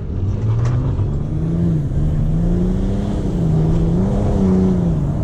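Straight-piped BMW 535d 3.0-litre twin-turbo straight-six diesel, heard from inside the cabin while driving, its note rising and falling in pitch several times, over tyre and road noise.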